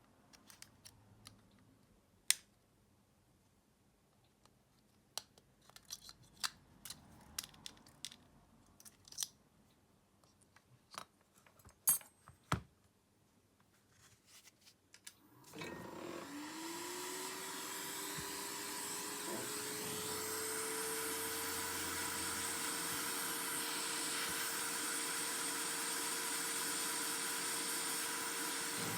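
Small tools clicking and tapping on a phone's plastic and metal parts, in scattered sharp clicks. About halfway through, a hot-air blower switches on: its motor spins up in a quick rising whine that settles to a steady tone over a constant hiss of rushing air.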